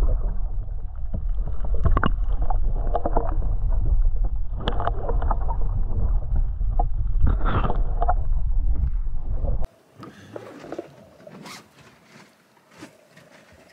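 Small boat at rest on the open sea: water sloshing against the hull under a steady low rumble, with a few brief knocks. About ten seconds in it cuts off suddenly to much quieter water hiss with faint clicks.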